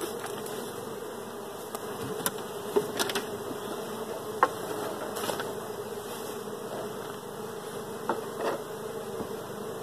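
Honey bees buzzing steadily around an open hive. A few sharp clicks and knocks stand out over the hum as a wooden hive box is handled and set in place.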